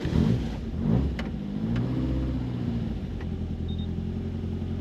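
Toyota AE86's 4A-GE four-cylinder engine on individual throttle bodies catching as it is started, rising briefly in revs about two seconds in, then settling to a steady idle. Heard from inside the cabin.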